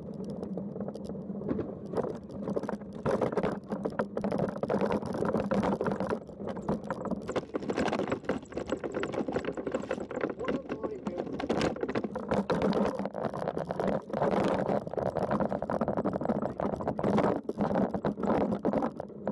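Land Rover being driven, heard from inside the cabin: a steady engine drone with road noise and frequent short rattles and knocks throughout.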